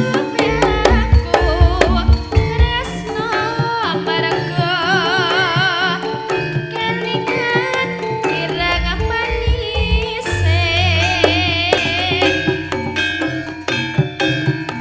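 Jaranan ensemble music: quick hand-drum strokes under a wavering, vibrato-laden melody line, with deep low notes sounding underneath.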